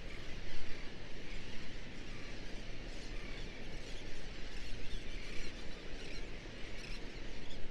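A flock of birds calling all at once, many high squealing calls overlapping into a continuous chatter.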